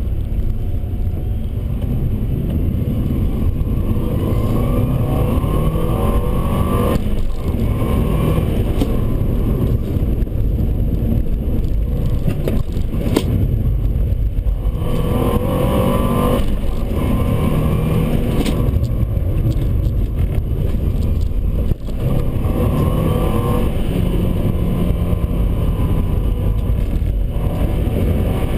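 Subaru Forester 2.5XT's turbocharged flat-four heard from inside the cabin, running hard under acceleration. The engine note repeatedly rises in pitch, broken by short dips where the revs fall, as at gear changes or lifting off for corners.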